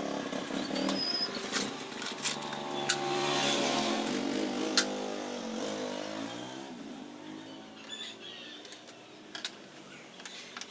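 An engine running, its pitch shifting and falling, then fading away after about six or seven seconds, with a few sharp clicks over it.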